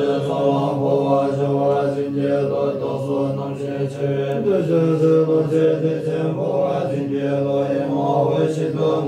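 Tibetan Buddhist monks chanting prayers together: several men's voices hold a low, steady recitation tone, which shifts pitch about four and a half seconds in.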